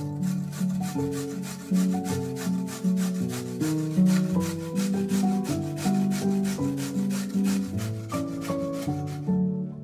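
A carrot being grated by hand on a stainless steel cone grater: rapid, regular rasping strokes that stop shortly before the end, over background music.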